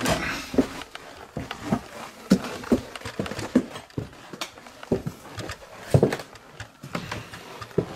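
Footsteps climbing bare wooden stairs and crossing wooden attic floorboards: a run of irregular thuds and knocks, about two a second, with a louder knock about six seconds in.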